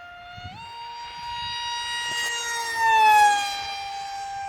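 Motor of a scratch-built high-speed RC plane whining in flight. It steps up in pitch about half a second in, then passes at its loudest about three seconds in and drops in pitch as it flies by.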